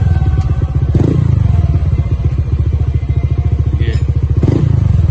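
Honda Click 125i scooter's single-cylinder engine idling steadily through a JVT V3 aftermarket exhaust pipe, with brief clatters about a second in and again near the end.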